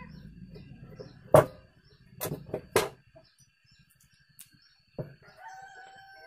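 A few sharp knocks, the loudest about a second in and a quick cluster around two to three seconds in. Another knock comes about five seconds in, followed by a drawn-out, steady-pitched animal call of about a second near the end.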